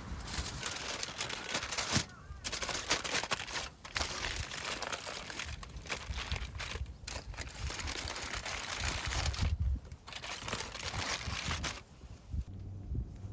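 Close rustling and crinkling, in bursts broken by short pauses every second or two.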